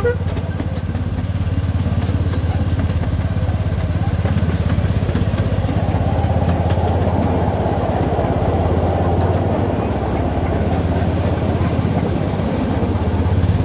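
Engine of a miniature railway's Hymek-outline locomotive running steadily as the train travels along. A rushing noise from the moving train swells for several seconds in the middle.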